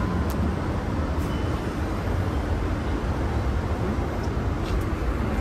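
Steady low rumble of street traffic, with a few faint ticks.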